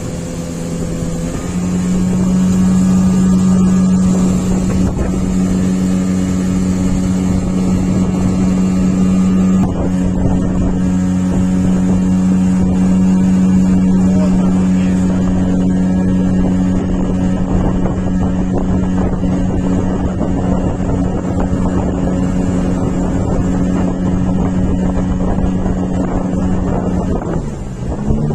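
Outboard motor of a small boat running at a steady cruising speed. Near the end it is throttled back and its pitch drops.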